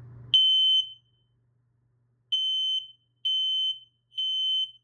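Smoke alarm sounding on test with loud, high-pitched beeps of about half a second each. One beep, then after a pause of about a second and a half, three more in quick succession: the temporal-three alarm pattern.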